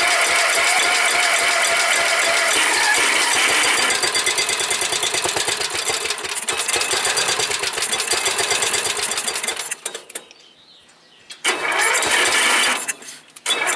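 An 11 hp Briggs & Stratton single-cylinder engine cranked by its electric starter on a cold start, turning over steadily for about ten seconds without catching. It is cranked again briefly near the end. The owner puts the failure to start down to the engine not getting any fuel.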